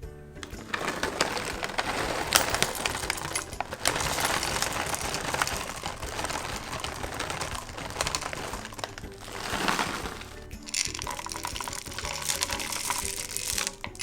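Background music over long stretches of clattering, scraping kitchen noise full of small clicks, typical of cookie dough being mixed or ingredients being stirred in a bowl; it breaks off briefly about ten seconds in, then resumes.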